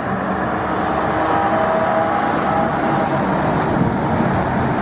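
Steady engine and road noise of a container truck driving, with faint whining tones through the middle.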